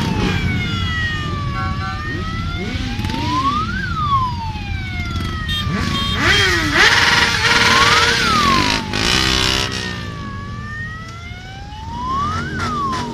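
Siren wailing slowly, rising to a peak and falling about every four seconds, over the low rumble of many motorcycle engines moving at walking pace. A few short beeps sound, and the loudest stretch comes about halfway through.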